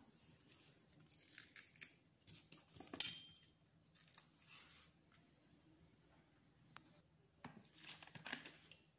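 Bananas being peeled and broken into pieces by hand: soft tearing and rustling in several short bouts, with one sharp knock and a brief ring about three seconds in.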